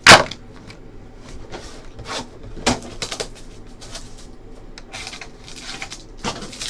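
A single sharp knock on the tabletop at the start, then scattered crinkles and clicks of a trading card pack's wrapper and cards being handled.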